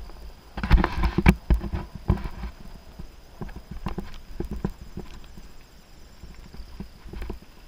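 2018 Giant Anthem Advanced 1 full-suspension mountain bike clattering over a bumpy dirt singletrack: irregular knocks and clicks from the bike as it hits the bumps, loudest in a quick cluster about a second in, over a low steady rumble.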